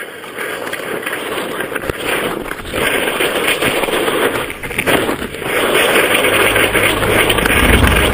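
Skis scraping over wind-crusted snow at speed, with wind buffeting the microphone, as a dense rough rushing noise that briefly drops twice. A low, steady bass note from music comes in about six seconds in.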